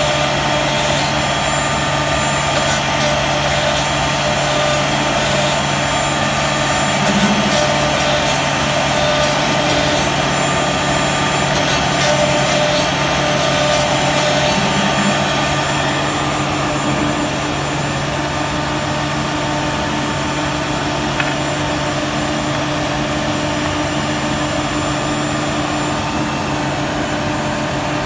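CNC router spindle running steadily as it cuts louver grooves into a wooden cabinet door: a dense cutting noise with a steady whine. It gets a little quieter a bit over halfway through.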